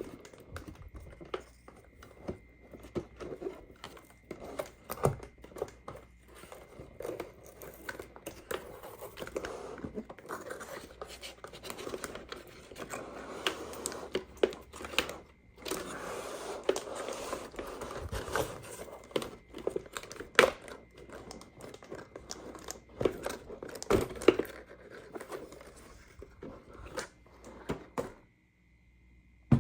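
Toy packaging being opened by hand: crinkling and tearing, broken by irregular sharp clicks and taps.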